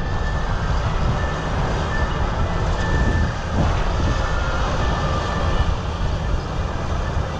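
Combine harvester running close by while harvesting wheat: a loud, steady machine noise, with a faint high whine that comes and goes.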